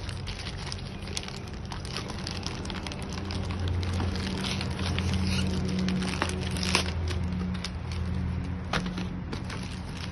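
A cardboard box and its packaging being opened and handled by hand: scattered small clicks, scrapes and crackles. A low steady hum comes in about three seconds in and fades out near the end.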